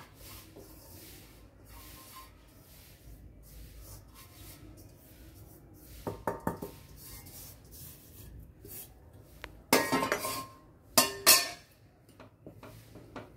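A stainless-steel bowl knocking and clinking against a steel pot as rice flour is tipped and tapped out of it. There are a few light clinks partway through, then two louder clusters of clanks with short metallic ringing about two-thirds of the way in.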